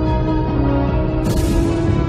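Background music: sustained held tones, with a cymbal-like swell about a second in.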